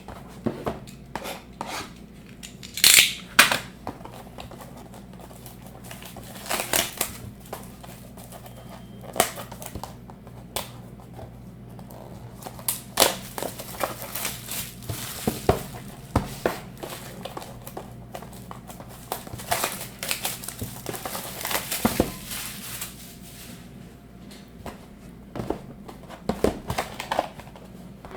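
Sealed trading-card boxes being unwrapped and opened by hand: plastic wrapping crinkling and tearing, with irregular clicks and taps of cardboard and packaging.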